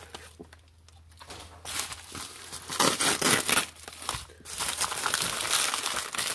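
Padded plastic mailing envelope crinkling and rustling as a folding knife slits it open and hands pull it apart. There are a few louder bursts, then steadier crinkling near the end.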